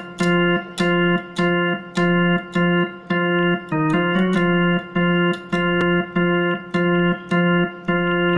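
Portable electronic keyboard's drawbar organ voice playing a riff of short, detached notes, about two a second. The notes mostly repeat on the same pitch, with a quick change of notes about four seconds in.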